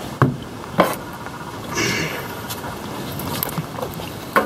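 A few light knocks and clicks, with a short scraping rustle about two seconds in, as a new spin-on oil filter is handled and pushed up into place, over a steady background rush.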